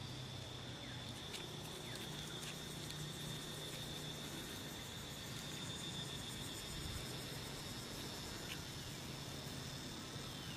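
Insects droning steadily on one high, even pitch, cutting off near the end, with a faint low hum underneath.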